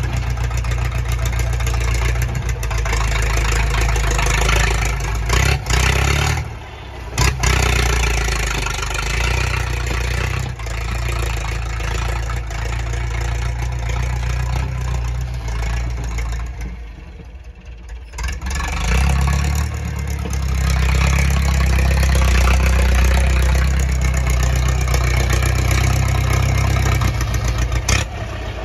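Massey Ferguson tractor's diesel engine running under work as its front dozer blade shifts soil. The engine eases off briefly about six seconds in and again for a couple of seconds around seventeen seconds in. After that it runs louder and deeper as the tractor drives forward pushing a load of dirt.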